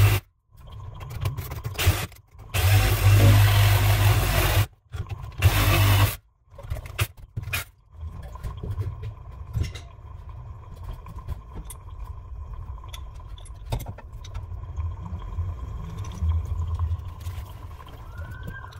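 Battery-powered Milwaukee tool's motor running in several bursts of a second or two each, the last and loudest ending about six seconds in. Quieter scattered clicks and knocks follow as the work goes on by hand at the valve.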